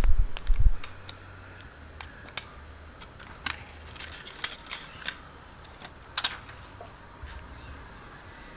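Irregular small clicks and taps of a smartphone and its parts being handled during a repair, with a few heavier knocks in the first second.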